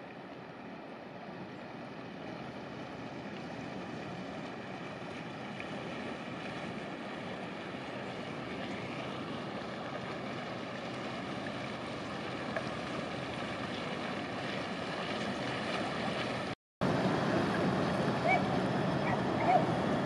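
Inland cargo barges passing, water rushing and splashing along the hull from the bow wave over a faint steady engine hum, growing slowly louder. It cuts out abruptly about 17 seconds in and comes back louder, with a few short chirps near the end.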